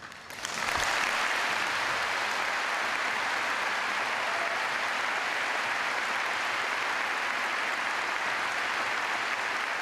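Audience applauding, starting about half a second in, quickly building and then holding steady.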